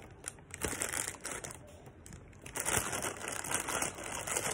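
Clear plastic bag crinkling and rustling as it is handled and pulled open by hand, in irregular bursts that grow louder and more continuous about halfway through.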